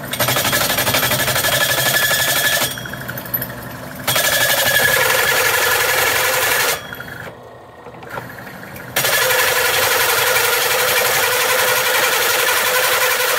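Bimetal hole saw, 2 1/8 inch, turning in a drill press and cutting through mild-steel rectangular tubing. It makes a loud, harsh cutting noise in three spells, with short pauses about three and seven seconds in.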